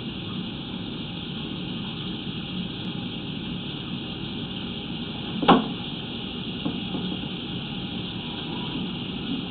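Steady hiss and low hum on a sewer inspection camera's audio, with one sharp knock about halfway through, like the camera rig bumping something.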